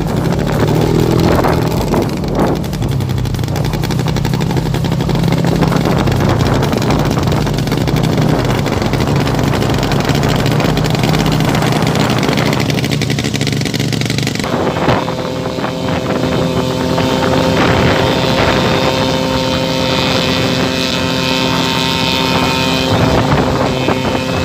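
Engine of a homemade aircraft running steadily under power, with a loud, even drone. About two-thirds of the way in, the sound changes abruptly and a higher steady whine joins it.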